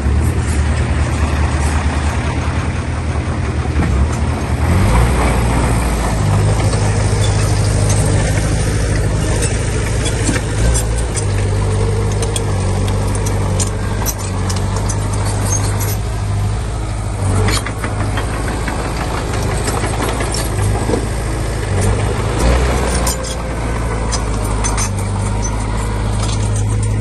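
Komatsu D20P bulldozer's diesel engine running under load, its note stepping up about four to five seconds in, with scattered sharp clanks and knocks from the machine working.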